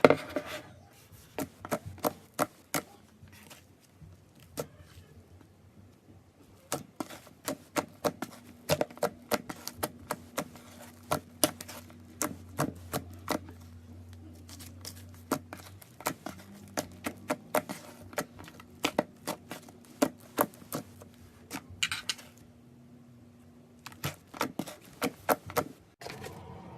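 Slime being squeezed and poked by hand, giving many sharp, irregular clicks and pops, with a faint steady hum in the middle stretch.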